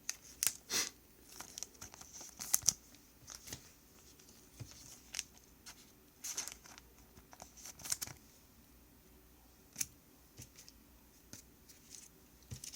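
Trading cards and their plastic wrappers or sleeves being handled: scattered short crinkles and rustles at irregular intervals.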